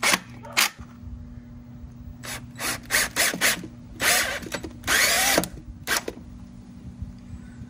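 DeWalt 12V MAX cordless drill/driver driving screws into the flange of a stainless exhaust tip, lightly snugging them down. It runs in a string of short bursts, with two longer runs about four and five seconds in.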